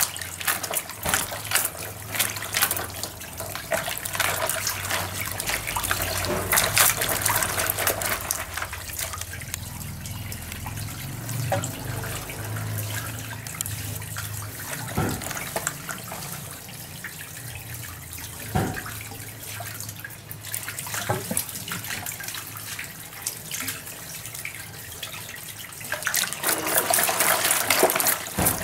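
Hands scrubbing small potatoes in a plastic basin of water, with splashing and sloshing and the potatoes knocking together. The middle is quieter, with a few separate knocks, and the splashing picks up again near the end.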